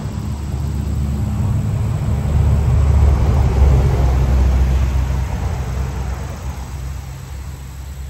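A motor vehicle passing close by: a low engine rumble that builds to its loudest about three to four seconds in, then fades away.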